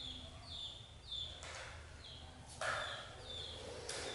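Repeated short high chirps, each sliding down in pitch, coming about twice a second, with two brief soft rustles among them.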